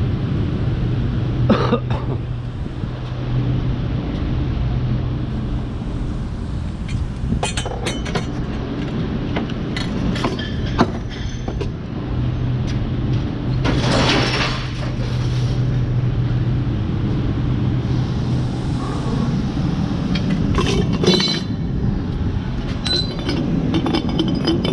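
Scattered metallic clinks and clanks of scrap metal being handled, over a steady low engine hum, with a longer rattling crash about fourteen seconds in.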